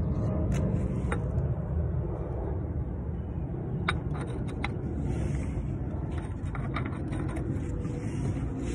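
Short light clicks and taps of a metal cup-type oil filter wrench being gripped and worked on the cartridge oil filter housing cap of a Toyota Highlander V6, a cluster of them about four seconds in, over a steady low rumble.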